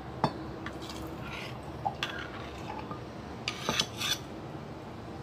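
Clinks of a spoon against a ceramic bowl and glass as coconut milk mixed with palm sugar syrup is spooned and poured over ice. One sharp clink comes just after the start and a quick cluster of clinks comes near the end.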